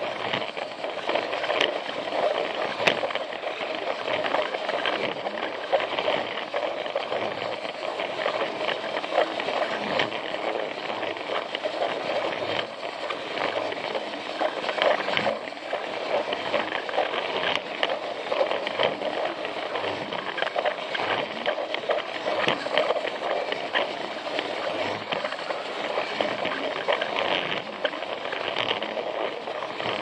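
Plarail battery-powered toy train running along plastic track: the small electric motor and gearbox whir steadily while the wheels rattle on the plastic rails, with frequent small clicks.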